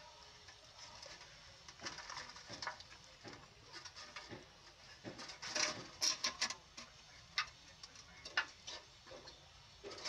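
Puppies suckling at their mother: irregular wet smacking and clicking, busiest about two seconds in and again around six seconds in.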